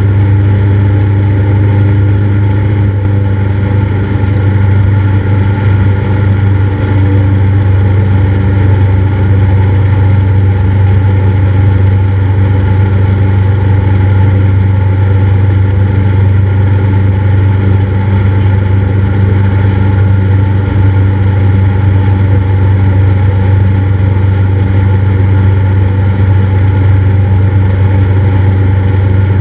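Cessna 172's piston engine and propeller droning steadily, with an even, unchanging pitch.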